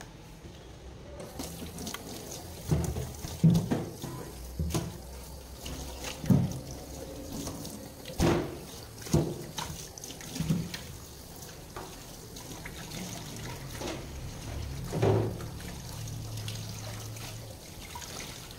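Water running and splashing in a sink, as when cut fish is rinsed, with irregular thuds and knocks against the sink or board.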